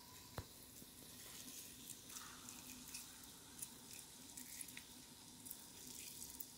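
Peeled lemon squeezed by hand over a ceramic bowl: faint wet squishing and crackling as the juice drips in, with one small click about half a second in.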